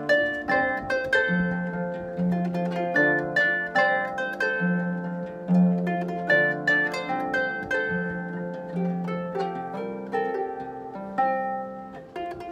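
Solo harp being plucked: a steady run of notes that each ring and fade, a low bass note repeated under a higher melody line.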